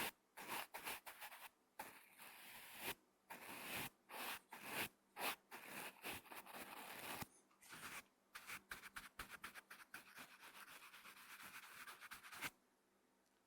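Brush bristles stroked across a microphone in ASMR mic brushing: a run of quick, irregular scratchy strokes, some short and some drawn out, stopping about a second before the end.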